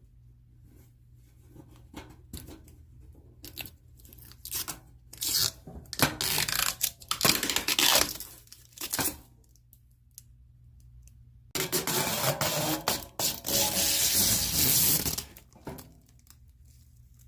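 Blue plastic protective film being peeled off a stainless steel toolbox, in short rips at first and then a long continuous peel in the second half, with a pause between.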